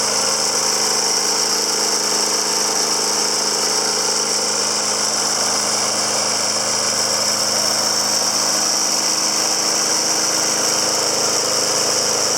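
Snapper Big Six lawn mower's 6-horsepower Briggs & Stratton engine running steadily at a constant speed.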